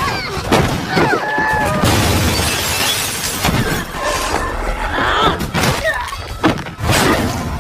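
Film fight sound: a run of blows and crashes with glass and crockery shattering, mixed with grunts and shouts from the fighters.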